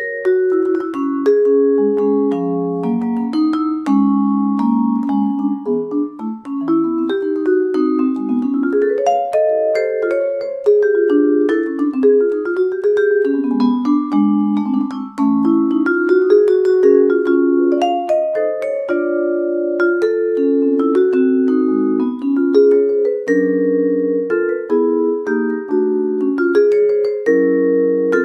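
Vibraphone played with four mallets: a flowing passage of chords and melodic runs, notes struck in quick succession and left ringing.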